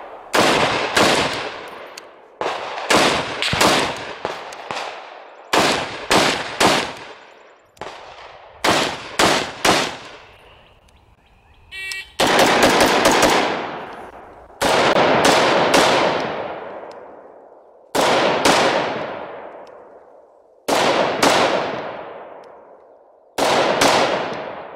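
Adams Arms SF 308 .308 rifle firing rapid strings of a few shots at a time, each string trailing off in a long echo. The rifle is fired first with a flash hider, then from about halfway through with a compensator on the muzzle.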